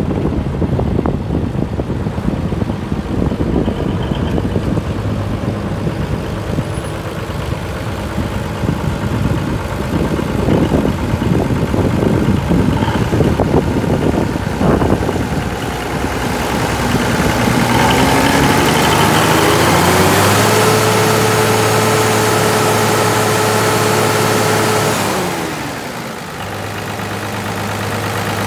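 Versatile 855 tractor's Cummins six-cylinder diesel running, at first with clanks and wind noise. Past the middle it is revved up over about three seconds, held at high speed for about five seconds, then dropped back to idle.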